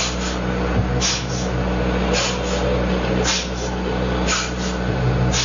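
Sharp, forceful exhalations through one nostril while the other is held shut with two fingers, about once a second: kapalabhati breathing. A steady low hum runs underneath.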